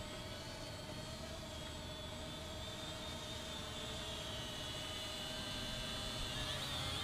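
Eachine E58 pocket quadcopter in flight, its propellers giving a steady high whine over a lower hum, the pitch wavering a little and growing slightly louder near the end.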